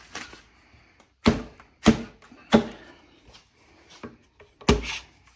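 Sharp knocks on the wooden boards of a table-top glue-up: three hard strikes about half a second apart, then a fourth after a pause.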